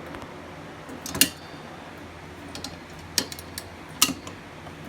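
Simplex Chevron fire alarm pull station being handled and reset: three sharp clacks, about a second in, about three seconds in and just after four seconds, with a few fainter ticks between.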